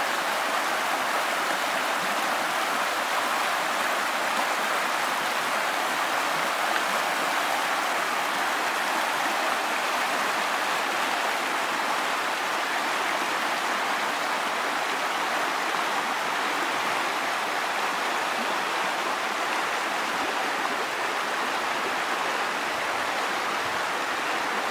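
Shallow river rushing over rocks through rapids: a steady, even rush of water.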